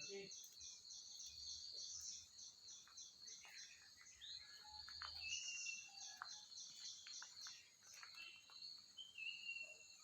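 Faint outdoor ambience: insects chirping in a steady, fast pulsing rhythm, with short bird chirps here and there.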